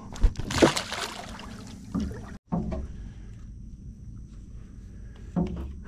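A short splash as a released black drum drops back into the water, followed after a break by a steady low background rumble on the water.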